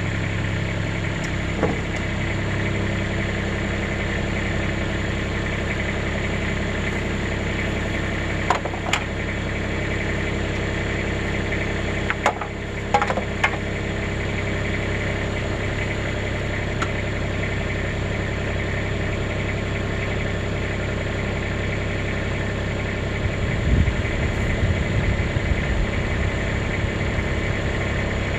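An engine running steadily, with a few sharp clicks around the middle and a stretch of low, uneven knocking near the end.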